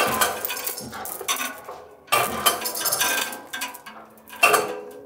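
Steel plate and vertical plate-lifting clamp clanking and scraping as a hoist lifts the plate off the floor in a trial lift. There are several separate metallic clanks, and the last, about four and a half seconds in, leaves the steel ringing.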